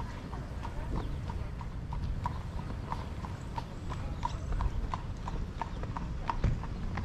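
Horse hooves clip-clopping on pavement at an even pace, about three strikes a second, from a horse pulling a buggy, over a low steady rumble.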